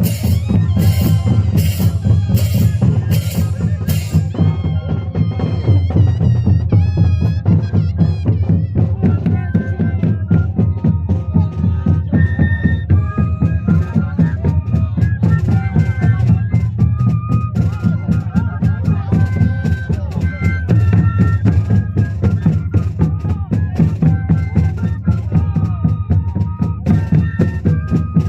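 Moseñada music: a troupe of moseño cane flutes playing a held, wavering melody in unison over a steady drum beat. Bright, sharp strikes about every three-quarters of a second stop about four seconds in.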